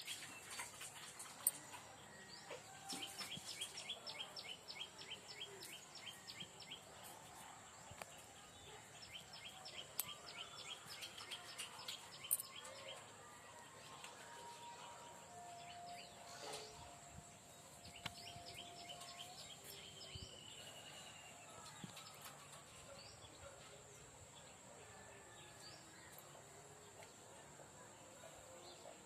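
Birds singing faintly outdoors, against a steady background hiss. Two runs of quick, evenly repeated high notes come in the first half, then scattered shorter calls.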